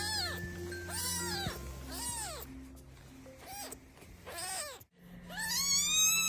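Kitten meowing: five short high meows, each rising and falling, about a second apart, then after a brief gap one long drawn-out meow. Background music plays underneath.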